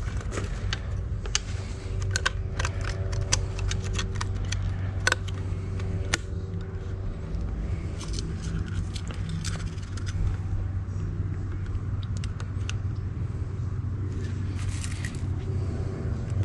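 Scattered light clicks and knocks of hands handling an e-bike's folding frame hinge and the battery cable run through it, over a steady low hum.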